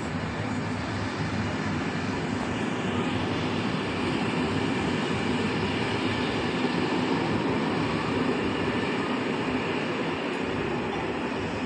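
A train rolling through the station: a steady rail rumble with a low hum, swelling somewhat in the middle.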